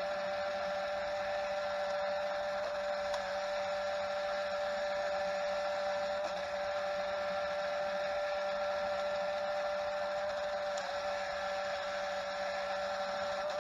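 Lego Technic 16-speed double-H gearbox on its test stand turned by an electric motor at constant speed: a steady whine of motor and plastic gears.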